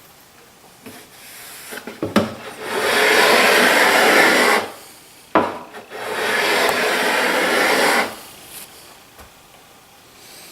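Hand plane taking two long strokes along a wooden board, each pass a steady shaving hiss of about two seconds, with a knock as the plane is set on the wood before each pass.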